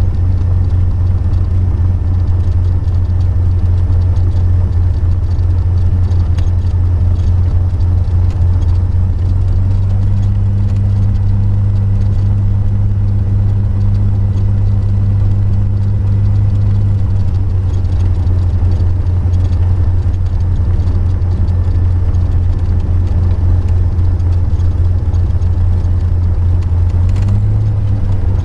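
Single-engine light aircraft's piston engine running at low power while taxiing, a steady low drone heard from inside the cockpit. The engine note rises slightly near the end.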